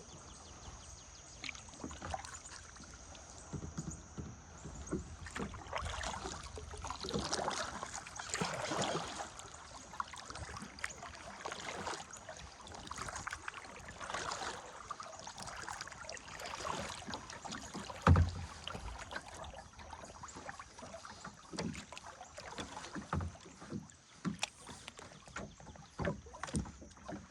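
Kayak paddle strokes swishing and splashing in river water in uneven swells. A single heavy low thump about two-thirds of the way through, with a few lighter knocks near the end.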